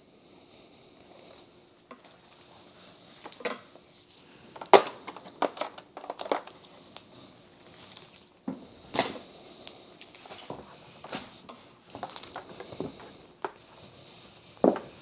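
A vacuum's coiled power cord being unwound and handled: irregular rustling with scattered light clicks and knocks, the loudest about five seconds in.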